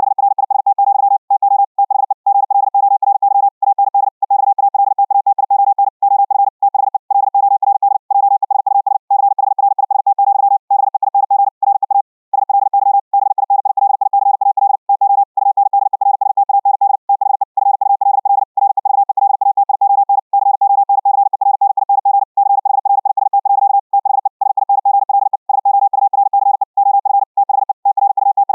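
High-speed Morse code (CW) sent at 60 words per minute: one steady mid-pitched tone keyed on and off very rapidly, with short gaps between words and one slightly longer pause near the middle.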